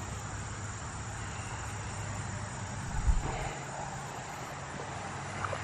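Steady low drone of a distant engine, with a short low rumble about halfway through.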